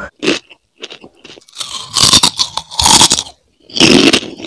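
Close-miked ASMR eating of crispy fried chips: loud, irregular bites and crunching chews, with the loudest crunches about two, three and four seconds in.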